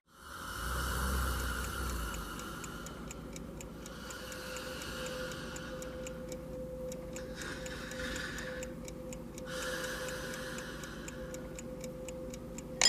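Clock ticking with even, regular ticks over faint steady room tone.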